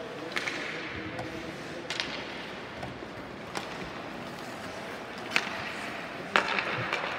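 Ice hockey play on a rink: five sharp clacks of sticks and puck, spaced one to two seconds apart, the loudest near the end, each echoing briefly in the arena over a low murmur of voices.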